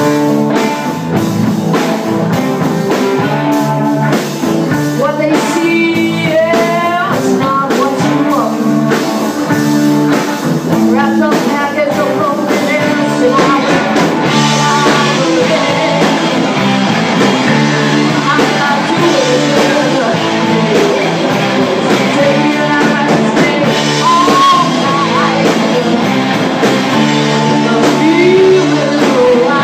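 Live rock-blues band playing a song, with electric guitar, drum kit and singing.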